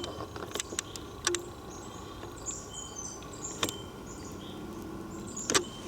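Scattered clicks and knocks of someone walking through woods with a handheld camera, the loudest two knocks about three and a half and five and a half seconds in. Short high chirps of birds or insects sound behind them.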